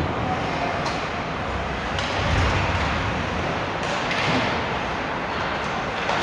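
Ice hockey game play in an arena: a steady wash of rink noise with a few sharp clacks, about three of them, from sticks and puck on the ice.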